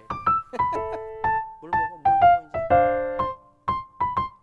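Background piano music: a melody of single struck notes that ring and fade, with a fuller chord about two and a half seconds in.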